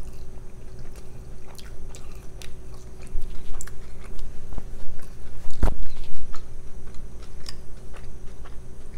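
A person biting into and chewing a cheeseburger close to the microphone: wet mouth clicks and smacks, with one sharp louder knock a little past halfway.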